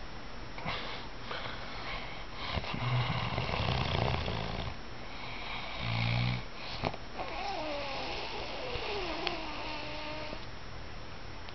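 A man snoring in his sleep: one long, low, rattling snore a few seconds in and a shorter one about two seconds later. These are followed by a faint whistling tone that slides down in pitch.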